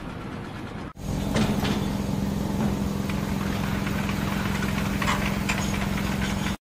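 Construction machinery engine running steadily at a constant pitch. It starts abruptly about a second in and cuts off suddenly near the end, with a few short clanks over it.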